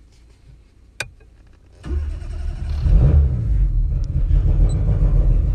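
A sharp click about a second in, then the engine of a turbocharged Tofaş Doğan starts just under two seconds in, revs up briefly and keeps running.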